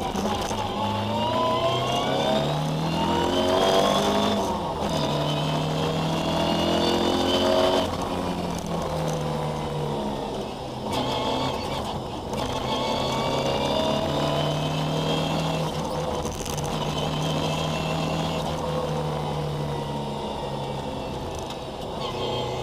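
Ford Escort historic rally car's engine heard from inside the cabin, pulling hard through the gears: the revs climb, drop sharply at upshifts about 5 and 8 seconds in, then hold steadier with brief lifts and dips.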